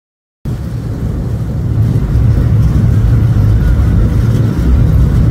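Passenger ferry's engines running with a loud, steady low rumble heard from the open deck, cutting in suddenly after silence about half a second in.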